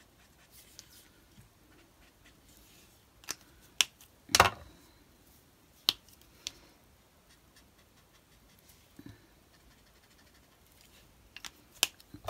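Scattered sharp clicks and taps of marker pens and craft tools being handled and set down on the craft desk, the loudest a short cluster of taps about four seconds in.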